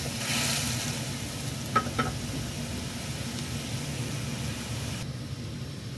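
Carrots and wood ear mushrooms bubbling and sizzling in a wok of hot liquid, stirred with a wooden spatula, with two light clicks about two seconds in. The hiss thins near the end.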